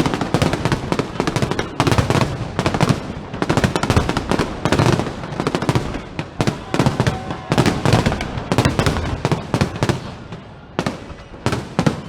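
Fireworks display at its height: a dense, rapid barrage of booms and crackling bursts, easing off to fewer, sharper bangs near the end.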